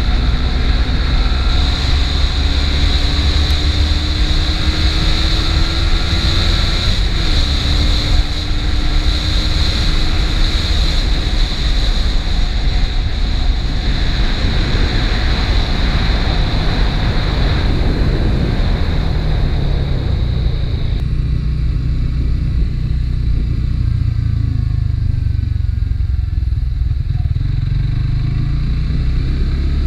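Suzuki GSX-S150's single-cylinder four-stroke engine through its stock exhaust, heard from the rider's seat under hard acceleration. The pitch climbs, drops at a gear change about seven seconds in, and climbs again. Later the note falls back and runs quieter at low speed, rising again near the end.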